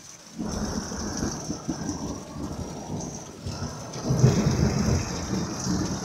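Thunder rumbling over steady falling rain. A rumble breaks in suddenly about half a second in and swells again, loudest, about four seconds in.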